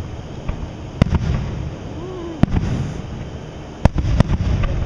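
Aerial firework shells bursting: sharp bangs about one second in and again around two and a half seconds, then two close together near the end, with a low rumble between them.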